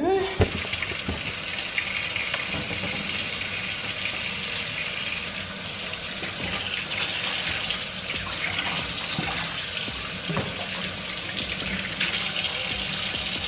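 Kitchen faucet running steadily into a stainless steel sink while hands are rubbed and rinsed under the stream.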